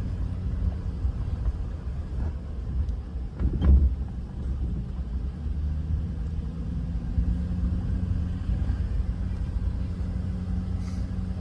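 Car driving: a steady low rumble of engine and road noise, with one louder thump about three and a half seconds in.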